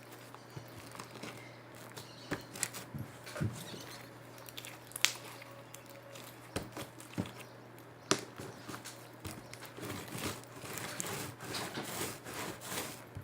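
Sticky slime being squished and stretched by hand, giving irregular clicks, pops and crackles that come thicker in the second half.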